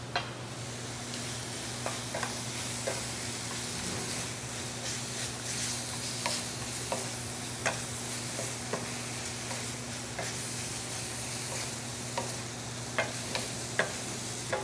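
Pork and lemongrass paste sizzling in a steel pan over a gas burner as a wooden spatula stirs it, with scattered clicks of the spatula knocking against the pan.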